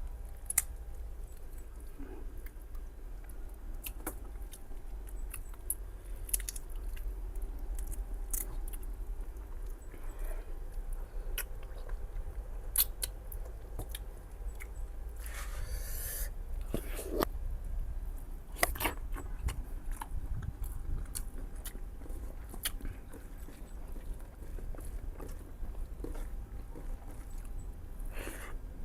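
A person chewing and biting into spicy mutton ribs with gravy and rice close to the microphone: scattered wet clicks and smacks, with a few short louder noisy bursts, over a steady low hum.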